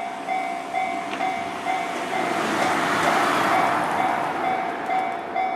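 Japanese railway level-crossing warning bell ringing at about two strikes a second while an electric train passes, its rushing noise swelling to a peak about halfway through and then easing.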